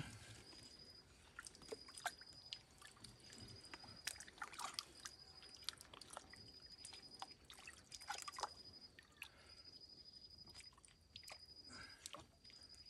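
Faint wet handling sounds of hands working in muddy water around a PVC pipe: small squelches, drips and scattered clicks, with a brief stronger bout about four seconds in and again about eight seconds in. A faint high chirp repeats in short runs throughout.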